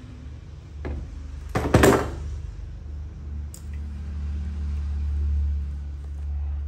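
A few hard knocks and a clatter of handled objects, the loudest cluster about two seconds in, then a faint click, over a low steady rumble.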